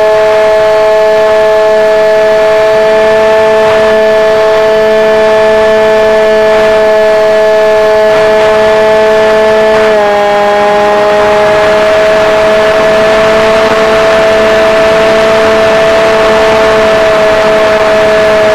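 Electric motor and propeller of an RC airplane heard from the onboard camera in flight: a loud, steady whine that drops slightly in pitch about ten seconds in, with rushing wind growing after that.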